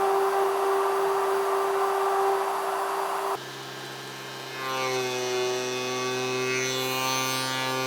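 CNC milling spindle running at a steady pitch while cutting, which cuts off abruptly a little over three seconds in; music with sustained tones then fades up.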